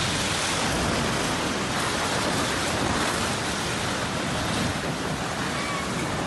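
An earthquake-damaged multi-storey apartment building collapsing: a loud, continuous rumbling crash of falling concrete and debris that eases off slightly near the end.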